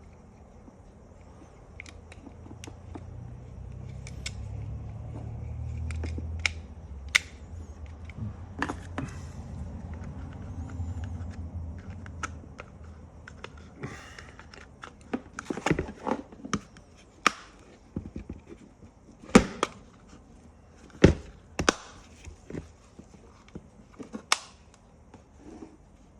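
Parts of a Toyota seatbelt retractor being handled and fitted back together: scattered sharp clicks and knocks, with several louder ones in the second half. A low rumble runs under the first half.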